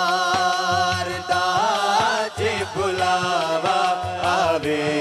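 Punjabi devotional kalam sung by male voices, holding long wavering notes over a low, steady rhythmic beat.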